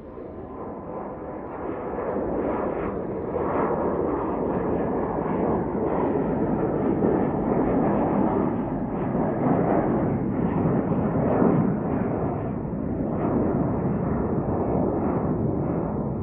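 Embraer E175 regional jet climbing out after takeoff: the deep, rough noise of its twin General Electric CF34-8E turbofans, with a crackle, growing louder over the first few seconds and then holding steady.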